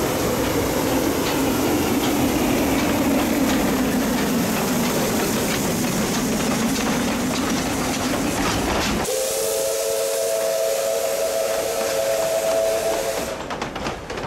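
Narrow-gauge C2-class steam locomotive pulling its train away: steam hiss with the rattle and clicking of the carriage wheels. About nine seconds in, the steam whistle blows one long steady chord of several tones for about four seconds, then fades away.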